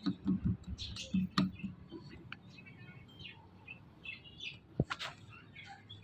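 Rose-ringed parakeet giving short, scattered chirps, mixed with knocks from a plastic water bottle being handled and pecked in the first second and a half, and one sharp click about five seconds in.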